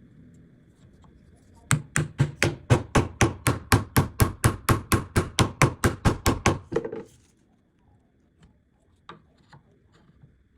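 A fast, even run of sharp knocks on wood, about five a second for some five seconds, starting about two seconds in.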